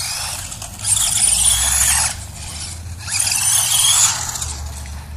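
Helion Animus 18TR RC truggy's small electric motor and gears whining at full throttle in two loud bursts, the pitch rising and falling as the truck speeds up and slows on concrete.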